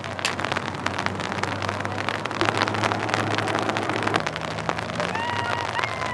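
Rain falling steadily, a dense crackle of drops on wet ground and puddles, with a low steady hum underneath.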